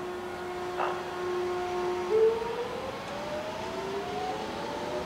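Hiroshima Electric Railway 3800-series streetcar pulling away from a stop, its inverter-driven traction motors whining. The whine steps up in pitch about two seconds in and then keeps rising as the tram gathers speed.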